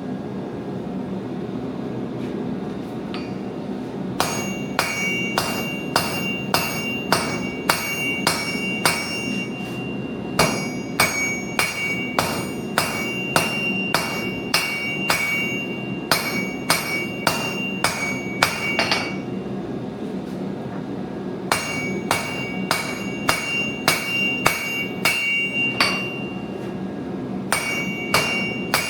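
Hand hammer striking metal on an anvil, about two blows a second in four runs with short pauses, each blow leaving the anvil ringing. A steady low rumble runs underneath, and the first few seconds hold only that rumble.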